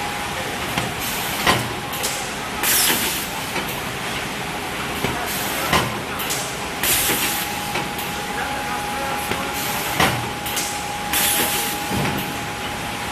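Shrink film packaging machine running with a steady hum and a faint whine. A sharp clack comes about every four seconds, three times, each followed about a second later by a short burst of hiss, as it cycles through packs of bottled water.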